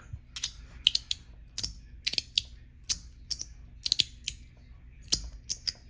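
Osseuss Travel Slider, a magnetic fidget slider, clicking repeatedly as it is slid: sharp metal snaps, singly and in quick pairs, a few a second.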